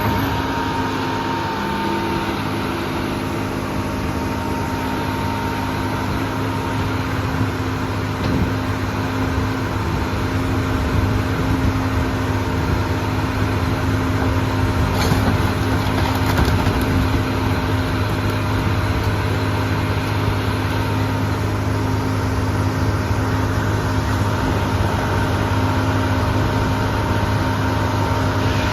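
Sierra RB5000 portable scrap baler/logger running steadily, its engine and hydraulic power unit droning, with a few brief knocks.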